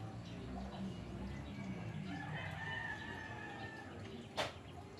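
A single long, drawn-out animal call lasting about a second and a half, holding one pitch and dipping slightly at the end. A sharp click follows near the end.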